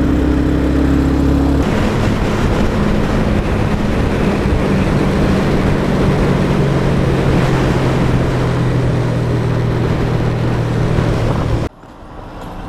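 Motorcycle riding at speed: the Honda CBR150R's single-cylinder engine running steadily under heavy wind rush on the helmet-mounted microphone. The engine note shifts slightly about two seconds in, and about a second before the end the sound drops sharply to a much quieter, slow-riding engine.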